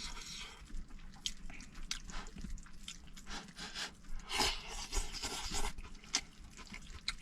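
A person chewing and crunching food up close, in irregular bites.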